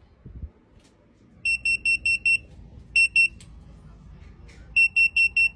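Handheld wireless hidden-camera detector beeping in quick runs of short high-pitched beeps, about five a second: five beeps, then two, then another run near the end. It is alerting to a camera in range.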